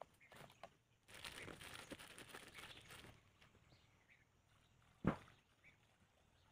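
Handling noise while a chainsaw is refuelled from a plastic fuel jug, engine off: rustling and scraping for the first few seconds, then one sharp knock about five seconds in. Faint bird chirps sound in the background.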